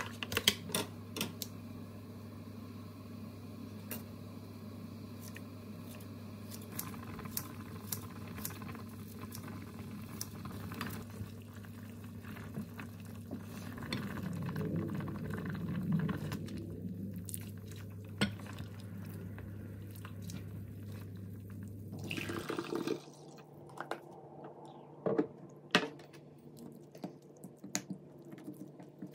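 Kitchen handling sounds: plastic food-container lids clicking and tapping, then a ladle scooping and stirring seaweed soup in a pot, with liquid splashing, over a steady low hum that stops about two-thirds of the way through. Near the end a wooden spoon clicks and scrapes against a ceramic bowl of soup and rice.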